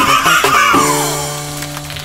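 Music: a gliding melody over held chords, settling into a sustained low note about three-quarters of a second in.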